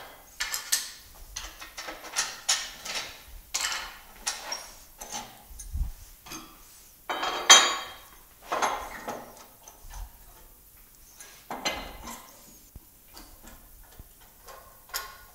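Metal lathe fittings being handled and repositioned: an irregular series of metallic clanks, knocks and short scrapes, the loudest clank about seven and a half seconds in.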